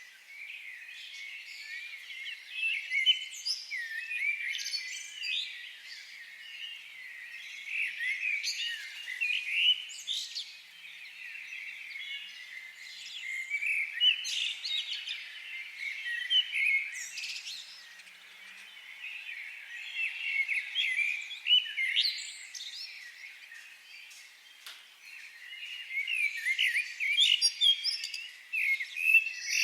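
Several small birds chirping and trilling continuously, many short overlapping high calls with no low-pitched sound beneath them.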